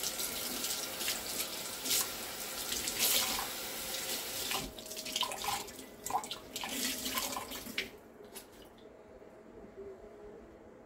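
Kitchen tap running for about four and a half seconds, then in short splashes until about eight seconds in, as a cloth is wetted.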